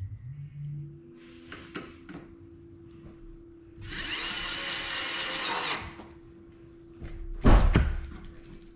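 A power drill runs for about two seconds, starting about four seconds in, driving a running-board mounting bolt. A loud thump follows near the end.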